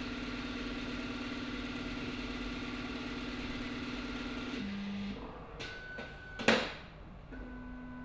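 Tecan Sunrise microplate reader's stepper motor whirring steadily as it drives the plate carrier with the ELISA plate, dropping briefly in pitch just before five seconds in. A single sharp clack follows about six and a half seconds in, and the motor whirs again near the end.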